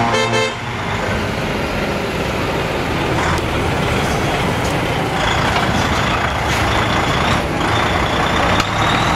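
DAF XF tractor unit's diesel engine pulling away and driving slowly past close by. A steady high whine comes in about five seconds in, with a few short hisses. A multi-note horn cuts off in the first half-second.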